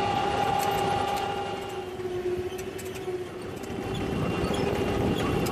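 Trebro turf harvester running: steady machine noise with a constant whine over it, easing off a little about two seconds in and building again near the end.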